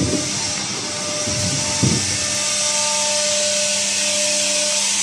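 Cooling fans and water chiller of a fiber laser welding machine running: a steady whirring hum with a few faint steady tones. A few dull knocks come in the first two seconds.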